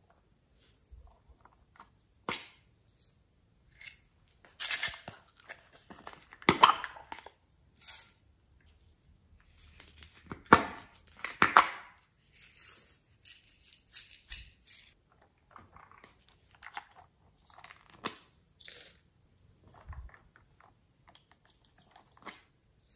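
Small plastic cups of sequins and glitter being handled and shaken over a tray of slime: scattered crinkly rustles and light plastic clicks, with the loudest bursts about five and eleven seconds in.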